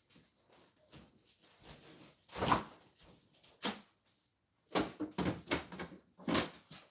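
A refrigerator door being opened, then a string of knocks and clunks as containers are moved about on the fridge shelves; the loudest knock comes about two and a half seconds in.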